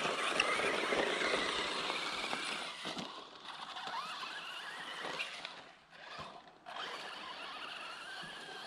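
Traxxas Slash 4x4 RC truck's electric motor and geartrain whining, the pitch rising and falling as the throttle is worked. The sound is loudest in the first three seconds and drops away almost completely for a moment about six seconds in before picking back up, fainter.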